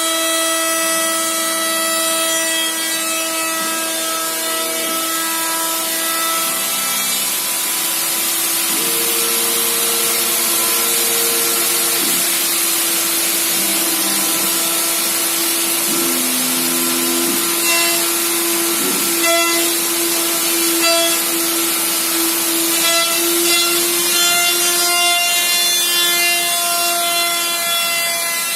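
Z1325H laser-engraving machine running, its gantry drive motors whining in steady tones that jump to new pitches every few seconds as the head changes speed and direction, over a continuous hiss.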